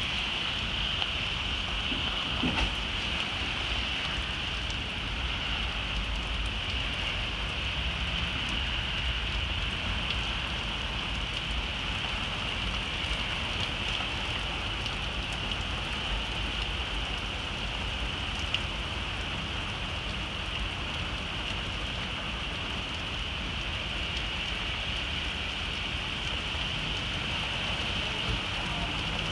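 Steady rain pouring down on the street and parked cars, an even hiss that does not let up.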